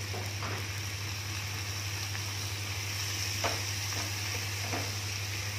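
Vegetables and holy basil sizzling in a frying pan as two wooden spatulas toss them, with a few clacks of the spatulas against the pan, the loudest about three and a half seconds in. A steady low hum runs underneath.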